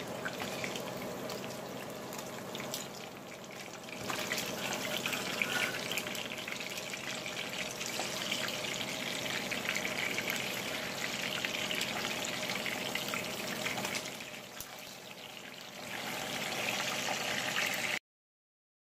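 Pieces of fish sizzling and crackling in hot oil in a frying pan, a steady fizz full of small pops. It grows louder a few seconds in, dips briefly near the end, then cuts off suddenly.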